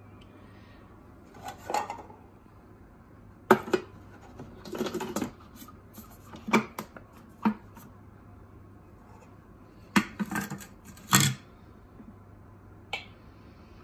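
Plastic clacks and scraping as a Thermomix TM5's lid is fitted onto the mixing bowl and its clear plastic measuring cup is set into the lid opening. There are several sharp knocks, the loudest about three and a half seconds in and near eleven seconds, with short rubbing stretches between.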